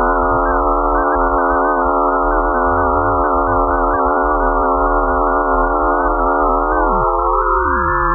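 The eerie electronic space sound presented as the 'sound of Phobos', Mars's moon: a dense cluster of steady, slightly wavering synthetic tones over a low rumble. Near the end some tones slide down in pitch while others rise.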